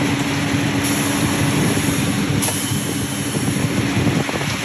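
Oilfield cementing pump truck running steadily, its engine and boost pump circulating water through the lines, with a constant hum under the machine noise. A few light knocks come near the end.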